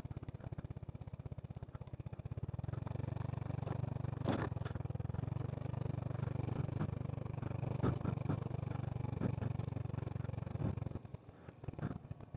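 Motorcycle engine running steadily at low speed under the rider, with scattered knocks and rattles from the rough yard surface. The engine sound drops off about eleven seconds in as the bike slows.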